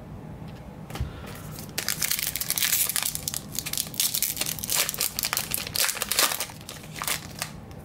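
Plastic wrapper of a baseball card pack being torn open and crinkled by hand. The dense crackling rustle starts about two seconds in and goes on for several seconds.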